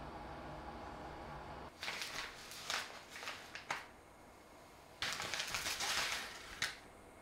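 A steady low hum that stops about two seconds in, followed by a printed paper bag crinkling and rustling as a hand opens it and reaches in for a bath bomb, in two spells, the second one denser.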